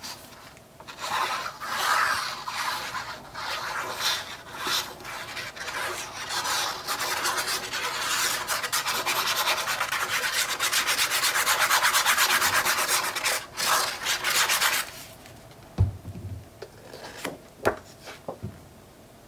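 A glue bottle's applicator tip rubbed back and forth over the back of a sheet of patterned paper: a papery scratching that grows louder and stops about fifteen seconds in. A couple of soft knocks follow as the paper is handled.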